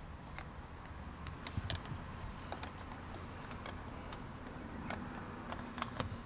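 Irregular light clicks and taps, a dozen or so, as a car seat part is handled and fitted back into place.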